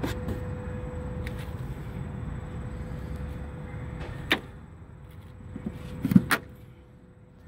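Tesla Supercharger connector being handled and pushed into a Model S charge port: a sharp click about four seconds in, then a couple of quick clicks and a clunk near the end as the plug seats and latches. A steady low rumble sits under the first half and eases off after the first click.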